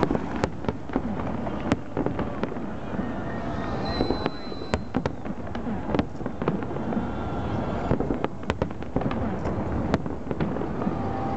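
Aerial fireworks shells of a fireworks salute bursting, many sharp bangs at irregular intervals over a continuous rumble, with people's voices in the background.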